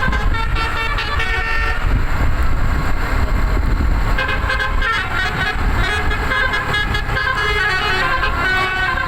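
Telolet basuri bus horn, a set of roof-mounted trumpets, playing a melody of stepping notes over a low engine rumble. There is a break of about two seconds early on before the tune resumes.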